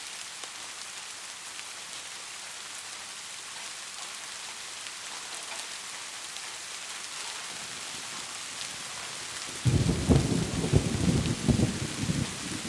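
Heavy rain falling as a steady hiss, with a sudden crack of thunder near the end that rumbles on.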